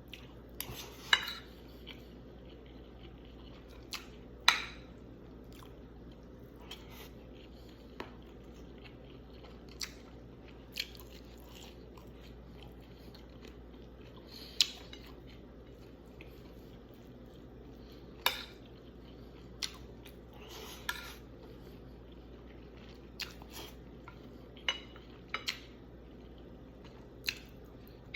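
Eating sounds: irregular short clinks and scrapes of cutlery on a plate, a few seconds apart, with chewing in between, over a faint steady hum.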